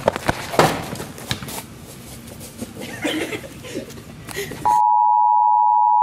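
Knocks and rustling from a scuffle on a handheld camera, cut off abruptly near the end by a loud, steady single-pitch beep: the test tone that goes with TV colour bars.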